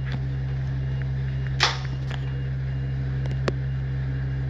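Steady low engine drone, with a short hiss about a second and a half in and a sharp click about a second before the end.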